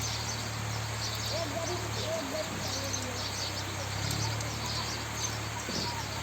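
Insects chirping in short repeated pulses, with a few faint gliding calls, over a steady low hum.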